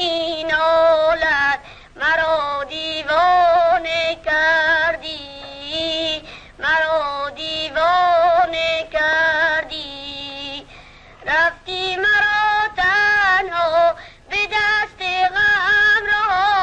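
A high voice singing a slow melody in phrases, with long held notes that waver in pitch and short breaks between the phrases.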